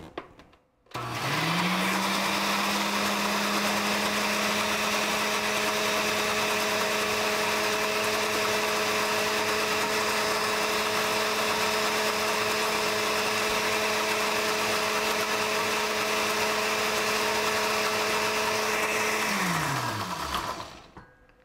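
Countertop blender motor switched on about a second in, spinning up quickly to a steady speed and running evenly while it blends a thin sesame-ginger salad dressing. Near the end it is switched off and winds down with a falling pitch.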